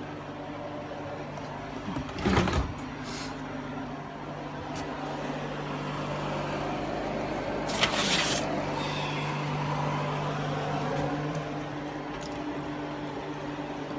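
Steady hum of a kitchen fan, with a second, higher hum joining about eleven seconds in. Two brief rattles, about two seconds in and about eight seconds in, come from a foil-lined baking pan being handled.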